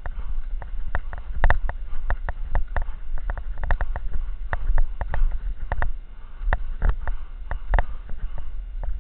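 A cross-country skier's own stride noise: irregular clicks and knocks, a few a second, from poles and skis on snow and the body-worn camera jostling, over a steady low rumble.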